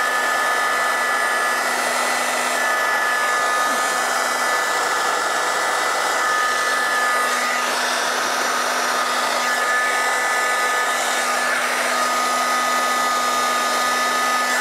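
Hot-air paint stripper (heat gun) blowing steadily, a rushing fan noise with a steady whine, as it shrinks heat-shrink tubing over a wiring loom; it is switched off abruptly at the end.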